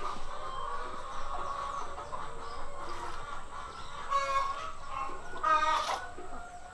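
Chickens clucking, with a few short calls, the loudest about four seconds in and again near the end.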